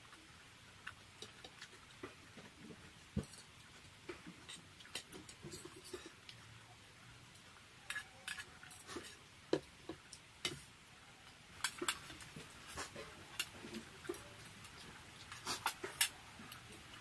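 Close-up eating sounds: chewing and lip smacking over veg chow mein, with irregular sharp clicks of a metal fork against a plate, busier in the second half.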